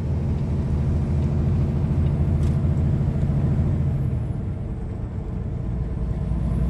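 Semi truck's diesel engine and road noise heard from inside the cab at highway speed: a steady low drone that eases slightly about four seconds in and builds again near the end.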